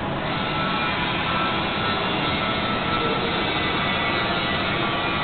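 Plasma torch of an Esab Numorex NXB 8100 CNC cutting machine cutting steel plate: a steady, even hiss with a faint whine over it.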